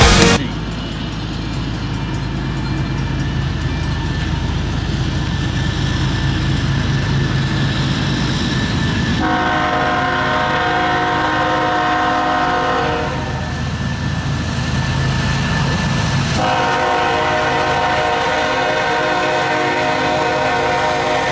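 Approaching Union Pacific GE C45ACCTE diesel locomotive leading an intermodal train, its engine a low rumble under two long air-horn blasts: one about nine seconds in lasting some three seconds, and a second starting about sixteen seconds in and still held at the end.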